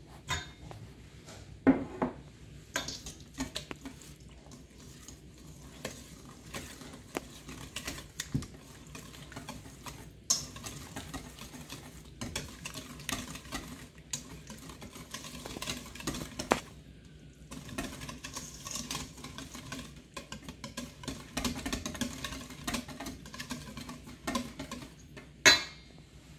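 Wire whisk beating pumpkin batter in a stainless steel mixing bowl: a steady rattle and scrape of the wires against the metal, broken by sharp clinks against the bowl, the loudest near the start and near the end.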